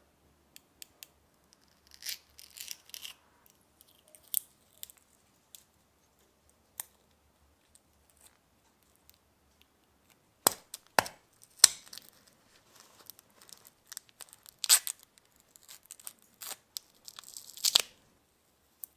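Small handling sounds on a sugar grinder's painted housing: sharp clicks of a metal tool against it, and crinkling bursts of paper being crumpled and packed into the housing, the loudest near the end.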